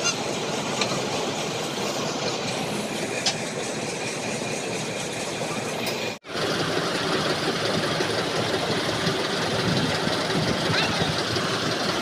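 Combine harvester's diesel engine and machinery running steadily, with a brief break in the sound about six seconds in.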